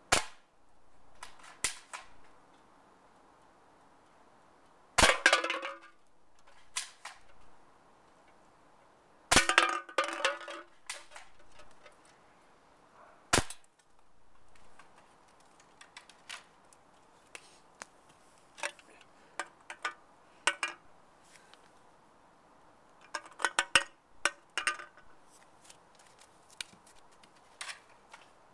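Airsoft M14 rifle firing single shots at an empty soda can: several sharp cracks a few seconds apart, two of them followed by a short metallic rattle, then a run of lighter clicks and snaps.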